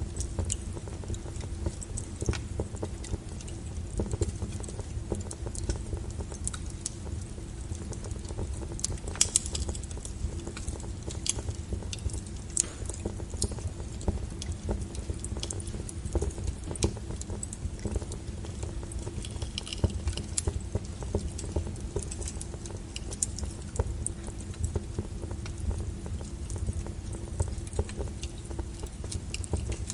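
Wood fire crackling: frequent, irregular sharp pops and snaps over a steady low rumble of burning firewood.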